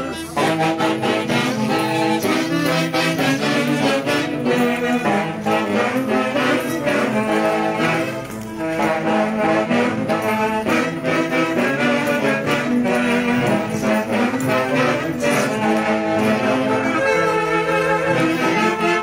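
Andean folk orchestra (orquesta típica) playing a tunantada for the dancers, with wind instruments carrying the melody. The music eases briefly about eight seconds in.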